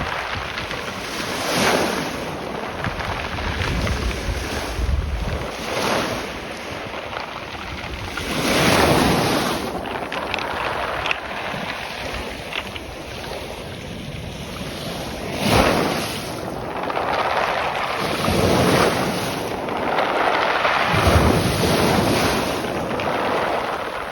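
Waves washing up and back over a shingle beach of pebbles, the stones rattling and hissing as each surge drags them. The surges swell every few seconds, with wind buffeting the microphone.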